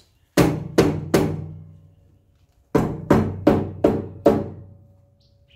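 Hammer blows on a new steel cab mount on the 1969 Ford F-250's cab floor, knocking it tight into place for welding. Three strikes, a pause, then five more, each leaving the sheet metal ringing.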